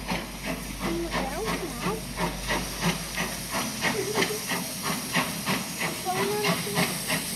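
Small industrial saddle-tank steam locomotive hauling a train of wagons, its exhaust beating in steady chuffs about four times a second.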